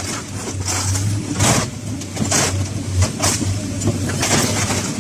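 Hydraulic excavator with a scrap shear attachment working, its engine humming steadily under short bursts of scrap car metal scraping and rattling about once a second.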